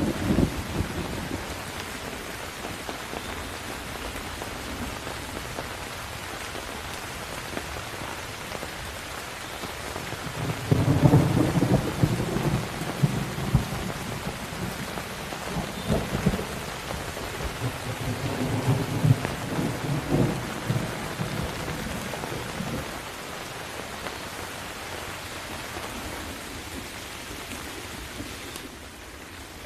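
Steady rain falling with thunder rolling in low rumbles. The loudest roll swells about ten seconds in, and further rumbles follow over the next ten seconds.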